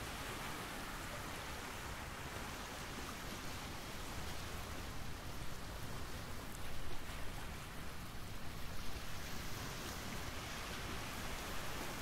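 Steady outdoor background hiss with no bird calls, swelling a little a few times in the second half.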